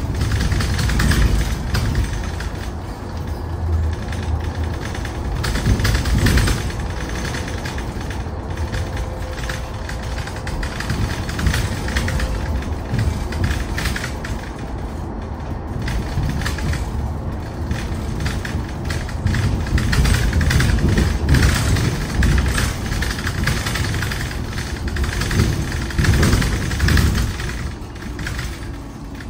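Interior ride noise of a Mercedes-Benz eCitaro G articulated electric bus under way: a steady low rumble from the tyres and road, with frequent rattles and knocks from the body.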